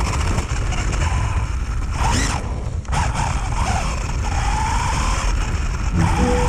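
Electric RC car's motor whining, its pitch rising and falling with the throttle, with a brief upward sweep about two seconds in.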